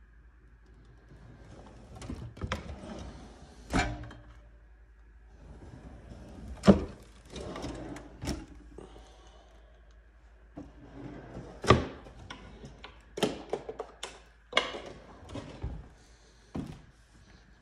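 Kitchen drawers and cabinet doors being opened and shut: a string of separate knocks and thunks with rattling and sliding between them, the loudest about seven and twelve seconds in.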